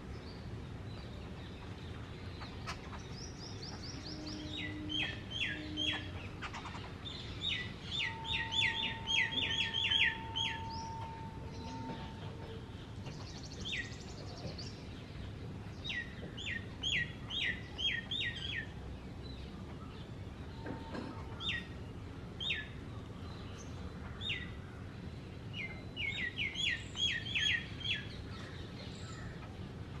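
Sharp, downward-sweeping chirps given in quick runs of three to ten, about three or four a second, with single chirps between the runs. A faint steady whistle-like tone sounds for a few seconds near the middle.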